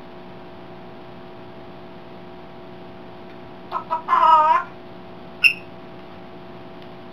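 African grey parrot imitating a chicken: two short clucks, then a loud half-second squawk that wavers in pitch, and about a second later a single short, sharp high note. A steady hum runs underneath.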